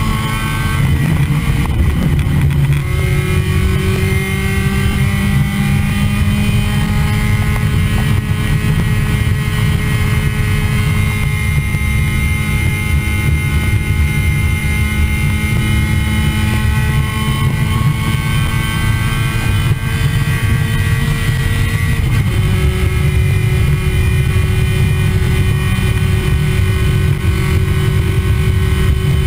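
Race car engine heard from inside the car, pulling under power with its pitch climbing slowly for most of the stretch, then dropping at an upshift about three quarters of the way through and holding steady after. A heavy low rumble of road and wind noise runs underneath.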